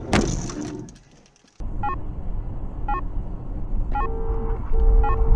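Car cabin road noise, a steady low rumble, with a short electronic chime about once a second. Near the end a steady tone sounds in two long pieces.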